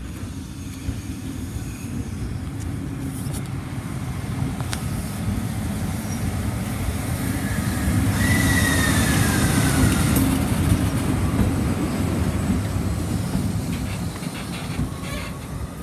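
A JR Freight EF65 electric locomotive hauling a container freight train approaches and passes close by: a rumble that grows and peaks as the locomotive goes past, with a whine that falls in pitch as it passes. Near the end the container wagons' wheels clack over the rail joints.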